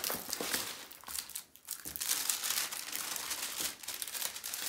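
Clear plastic protective film on a diamond painting canvas crinkling as it is laid back down and smoothed flat by hand, with a short lull about a second and a half in.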